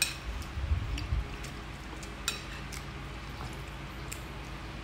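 Metal spoon and chopsticks clinking against a glass bowl of noodle soup as noodles are lifted out: a few light clinks, the sharpest at the start and about two seconds in, with soft low bumps in the first second.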